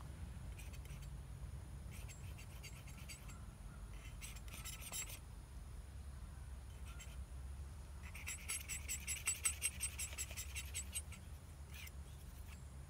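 Palette knife scraping and dabbing paint onto a painting panel: several short runs of light, scratchy ticks, the longest and loudest about two-thirds of the way in, over a steady low background rumble.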